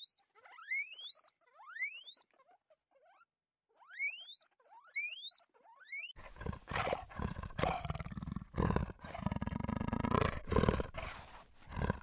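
Guinea pig wheeking: short, sharply rising whistled squeals, three in the first two seconds and two more around four to five seconds in. About six seconds in, this gives way to a big cat's harsh, rough growling in loud repeated pulses.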